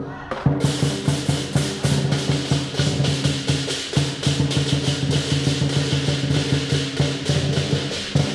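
Lion dance drum, cymbals and gong playing a fast, loud, steady beat, with the cymbal clashes ringing on between strikes.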